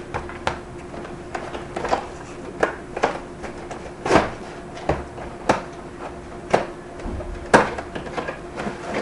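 Mouse box contents and packaging being handled: a string of irregular clicks and knocks, one or two a second, with two louder knocks about four and seven and a half seconds in.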